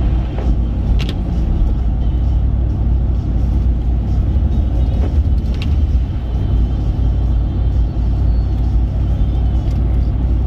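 Steady low road and engine rumble heard from inside a vehicle's cabin while cruising on a highway, with two brief clicks, about a second in and halfway through.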